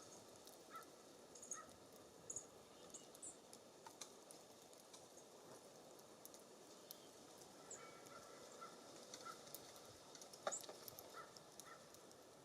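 Faint wild songbird calls at a bird feeder: short repeated call notes, several in a loose series in the second half, and high thin calls, with light taps and clicks from birds at the feeder, over a steady low hiss.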